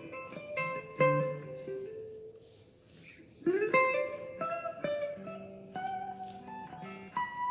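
Guitar being played: a chord struck about a second in and another at about three and a half seconds, each left to ring and die away, with single picked notes in between.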